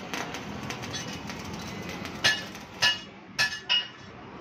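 Four sharp metallic clinks with a short ring, steel on the welded grill frame being struck, in the second half.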